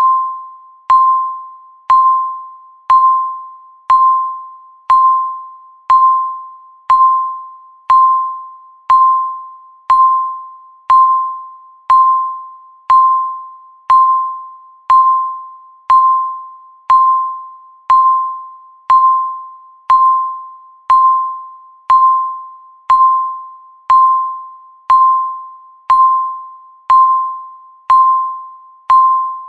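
Countdown timer beep sounding once every second: a single high, chime-like tone that starts sharply and fades quickly, repeating evenly.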